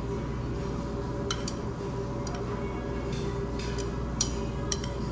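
Light, scattered clicks and clinks of eating utensils against bowls and dishes, about ten in all, over the steady hum of a restaurant dining room.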